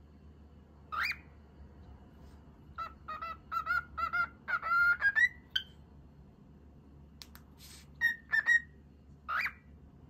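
Cockatiel whistling and chattering: a rising whistle about a second in, a quick run of warbling notes in the middle, then a few short notes and another rising whistle near the end.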